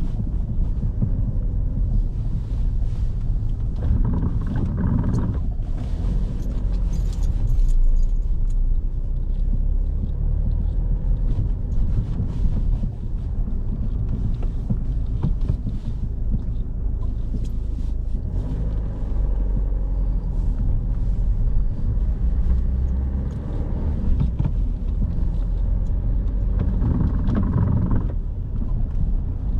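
Car driving on wet streets, heard from inside the cabin: a steady low rumble of engine and road noise, swelling briefly about four seconds in and again near the end.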